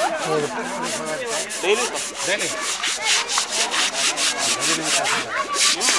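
Repeated scrubbing strokes on a bathing elephant's wet hide, about three to four strokes a second, coming thickest near the end.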